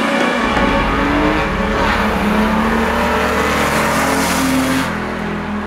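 Opel Vectra B i500's V6 engine accelerating as the car drives past, its note rising in pitch, then falling away and fading near the end.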